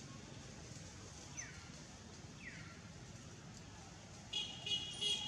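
Two short falling bird whistles, then near the end a louder, high-pitched animal call with several pitched lines, over a faint steady low hum.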